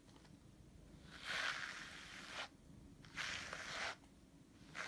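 Long cat fur rustling against the microphone as the cat is stroked, in two stretches: one about a second long from roughly a second in, and a shorter one past the middle.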